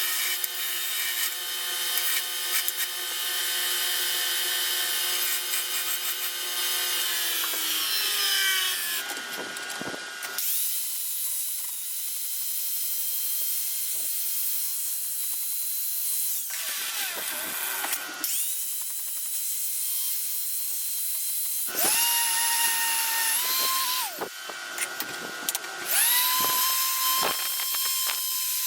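Electric grinder working on an old rusty cross-peen hammer head, cleaning it up and dressing its faces. It winds down with a falling whine about eight seconds in, then is switched on and off several more times.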